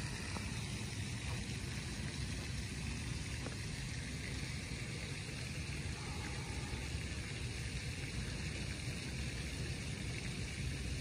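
Light rain falling steadily on a pond and a wooden footbridge: a continuous even hiss over a low rumble underneath.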